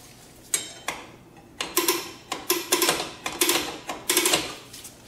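Drum brake star-wheel adjuster being turned by hand, its teeth clicking over the lock lever on the backside: about a dozen uneven clicks as the new brake shoes are expanded toward the drum.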